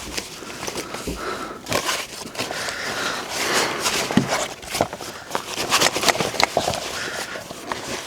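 Gear being handled and moved: irregular rustling with scattered clicks and knocks.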